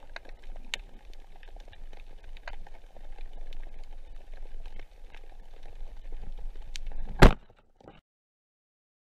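Underwater recording: a low rumble with scattered crackling clicks, then a single loud, sharp clack a little after seven seconds in, the speargun firing at sea bass. The sound cuts to silence a moment later.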